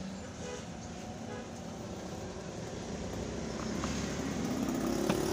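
A steady low rumble that grows louder over the last couple of seconds, with a few light clicks as a black plastic cover is handled and fitted onto the machine's housing.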